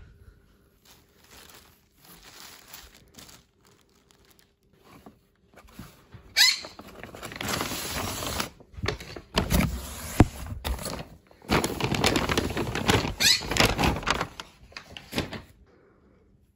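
Plastic packaging crinkling and rustling loudly as a stuffed animal is pulled out and unwrapped, starting about six seconds in and lasting most of the rest, with a short break in the middle. Before that, faint rustling of plush and cardboard being handled.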